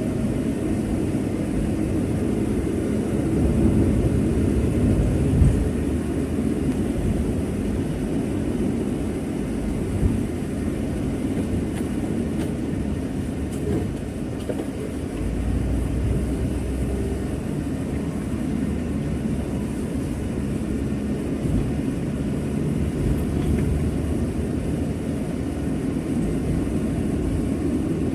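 Steady low rumble of a moving vehicle, with a couple of small knocks.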